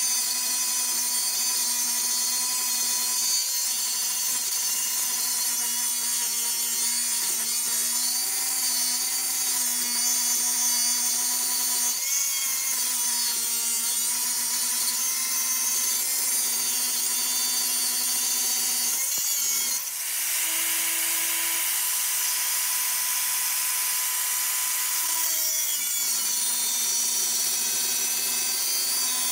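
Angle grinder cutting into metal clamped in a vise, notching a custom motorcycle fork part, its motor whining steadily under load. The cut breaks briefly about twenty seconds in and the pitch changes for about five seconds before the steady cutting sound returns.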